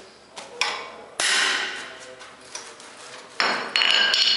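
Hammer blows on the steel folding-hinge clamp of a vintage Pony bicycle frame, driving out a hinge pin: four sharp metallic strikes, the one about a second in the loudest, and the last near the end ringing on.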